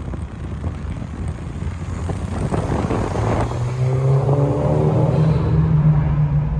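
Peugeot 208 GT's stage-2 tuned 1.6 THP turbocharged four-cylinder accelerating, its engine note growing louder and settling into a strong, slightly rising drone from about halfway. A short rush of noise comes just before the engine note takes over.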